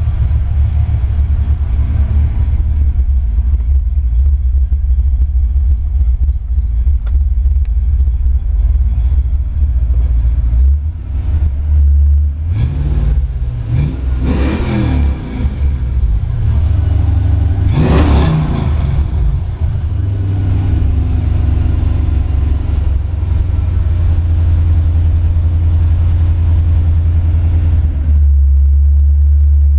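A 1988 Ford Mustang GT's 5.0-litre (302 cu in) small-block V8, exhausting through Mac Pro dump mufflers, idling and heard from inside the cabin. About halfway through the throttle is blipped a few times, the engine briefly revving up and dropping back, the last rev the sharpest; then it settles back to a steady idle.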